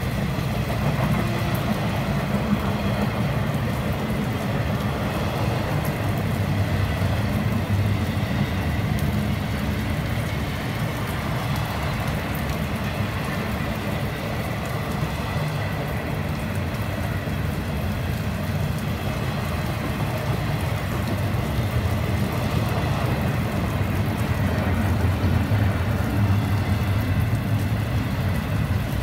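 Intermodal freight train's container cars rolling past, a steady rumble of wheels on the rails.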